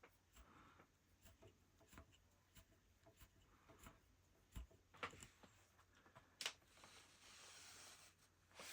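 Faint, irregular soft clicks and ticks of a rug hook punching through the backing and pulling wool loops up, with a soft rustle of about a second near the end.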